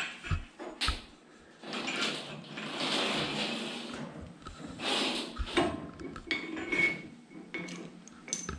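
A braided steel lift cable being pulled and worked at the top of a steel lift post: light metal clinks and knocks with two longer scraping, rustling stretches, and a brief metallic ring near the end.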